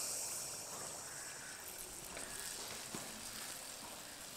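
Malpua batter frying in very hot oil in an iron kadai: a steady sizzle that slowly eases, with scattered small pops.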